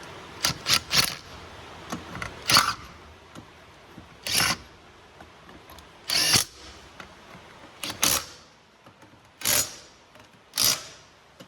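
Power impact wrench on wheel lug nuts, run in about nine short trigger bursts a second or two apart, three in quick succession near the start.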